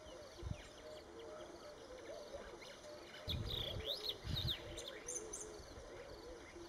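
Outdoor birdsong: a steady chorus of warbling, wavering calls with higher chirps overlaid, busiest about three to four and a half seconds in. Low rumbling bursts come once near the start and again in the middle.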